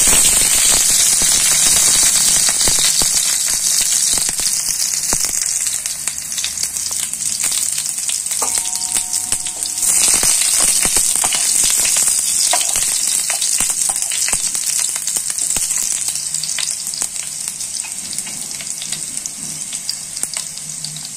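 Cumin seeds and chopped green chillies sizzling and crackling in hot oil, the tempering (tadka) for dal; the sizzle slowly dies down and picks up again about ten seconds in as they are stirred with a spatula.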